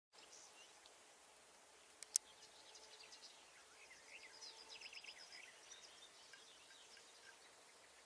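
Faint small birds chirping and trilling in a quiet open-air background, busiest around the middle. Two sharp clicks sound close together about two seconds in.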